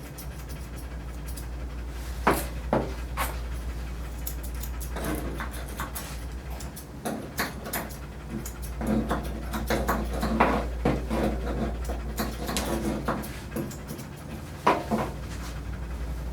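Portuguese Water Dog panting, with scattered sharp clicks and knocks, the loudest about two seconds in and near the end, over a steady low hum.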